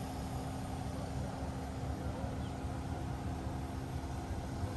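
Scania crane truck's diesel engine running steadily with a constant hum, driving the hydraulics of its Fassi F380 knuckle-boom crane during a boat lift, with wind rumbling on the microphone.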